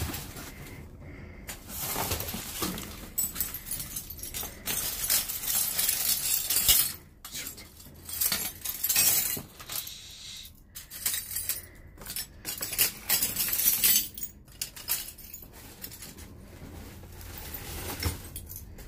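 Glass jars and broken glassware clinking and crunching in irregular bursts as a pile of dumpster refuse is rummaged through.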